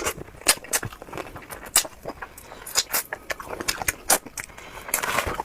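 Close-up eating sounds of someone chewing spicy bullfrog: irregular sharp clicks and wet smacks of the mouth.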